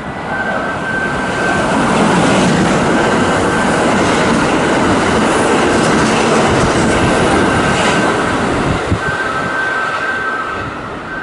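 A Kintetsu electric train passing, its running noise building over about two seconds, holding, then fading near the end. A steady high electronic tone is covered while the train is loudest and comes back as it fades.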